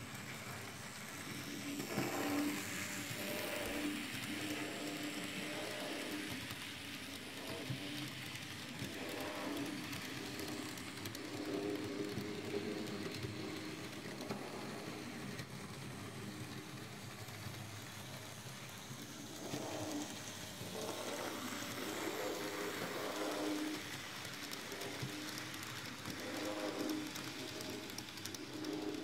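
N scale model steam locomotive running on its track: a steady whir from its small electric motor and wheels, swelling and fading a little as it goes.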